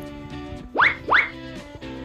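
Background music with guitar. About a second in, two quick rising swoops in a row stand out as the loudest sounds.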